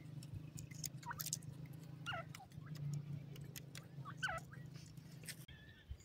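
Grey francolin chicks calling: three short chirps that sweep down in pitch, about 1, 2 and 4 seconds in. Light ticking and a steady low hum run underneath; the hum stops near the end.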